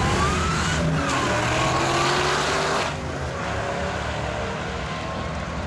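Two drag-racing cars accelerating hard off the line, engine pitch climbing through the gears with a shift about a second in. The sound drops suddenly about three seconds in as they pull away down the track.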